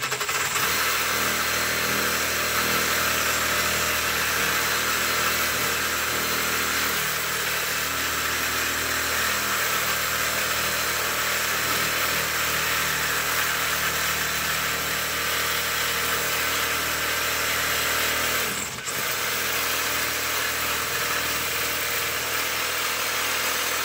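Ryobi One+ cordless reciprocating saw running steadily as its blade cuts through a metal bar clamped in a vise, with one brief dip about 19 seconds in.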